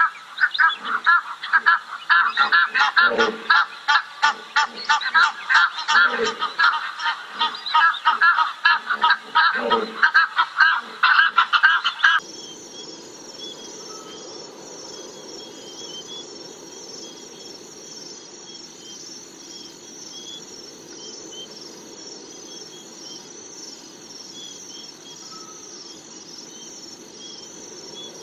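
A flock of birds calling loudly, many rapid overlapping calls, that cuts off abruptly about twelve seconds in. A quieter, steady, high pulsing chorus follows.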